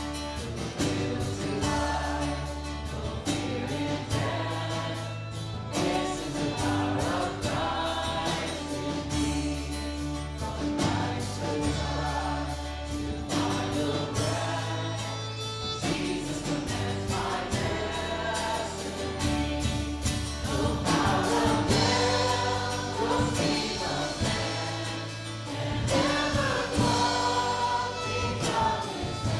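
Choir singing a Christian gospel song over instrumental backing, with held bass notes that change every couple of seconds.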